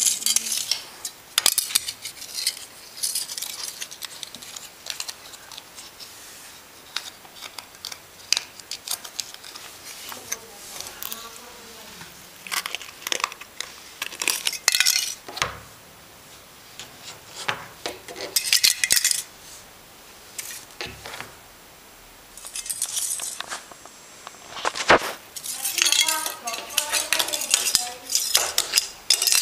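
A cat scratching and pawing, its claws scraping and clicking against a wooden door and the tiled floor in irregular clusters of short, sharp scrapes.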